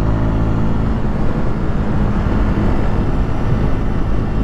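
2020 Honda CB300R's 286cc single-cylinder four-stroke engine running at a steady cruise, with a steady rush of wind noise over it.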